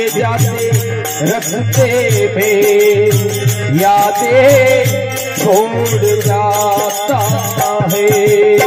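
Devotional folk bhajan music: harmonium with a man's voice drawing out gliding sung notes, over a steady low drum beat and continuous rattling percussion.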